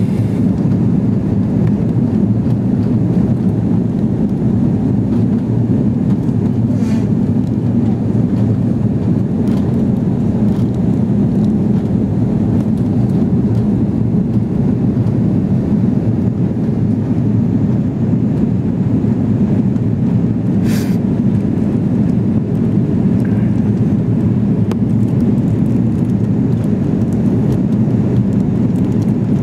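Steady low cabin noise of a jet airliner descending to land: engines and airflow heard from inside the passenger cabin.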